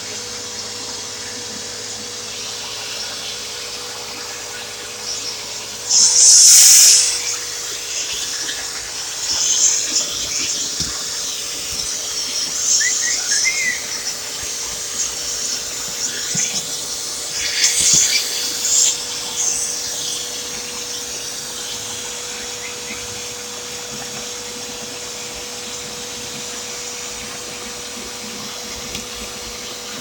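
Hoover vacuum cleaner running with its hose and wand attachment, sucking up bird-cage litter: a steady motor hum and hiss. About six seconds in comes a loud rushing hiss of air, and several shorter surges follow over the next dozen seconds.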